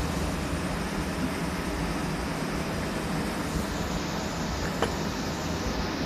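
Meiji electric piston air compressor running steadily, its motor and pump making a continuous mechanical hum. There is one sharp click near the end.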